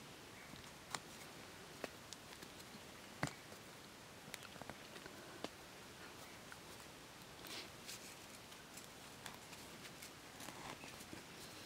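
Faint handling sounds of green bamboo strips being bent and pressed into loose soil: a few sharp clicks in the first half, then soft rustling.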